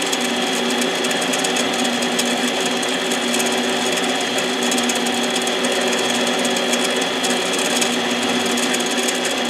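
Harbor Freight 7x10 mini lathe running steadily with its spindle turning a piston, giving a steady whine of several held tones over a hiss.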